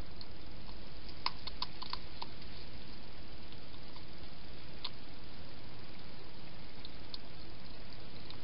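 Hedgehog eating or drinking at a bowl: a quick run of small wet clicks about a second in, then a few single clicks later, over a steady hiss.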